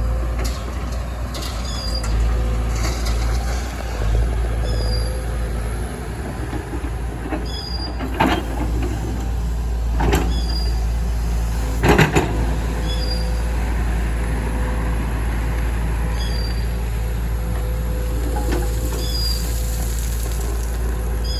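Diesel excavator engine running with a steady low rumble while loading gravel, with three sharp clanks and knocks about eight, ten and twelve seconds in, the last the loudest. A short high chirp repeats about every second and a half.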